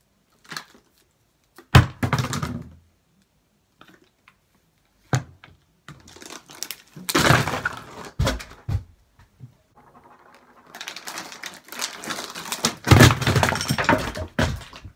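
Several thumps and knocks with rustling as a person shifts about behind a table and then gets up; a sharp thump about two seconds in, and a longer run of rustling and knocks near the end.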